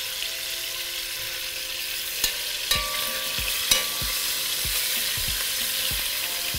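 Chunks of pork sizzling steadily as they brown in hot fat in a pot. Metal tongs click against the pot and the meat as the pieces are turned over, sharpest two to four seconds in.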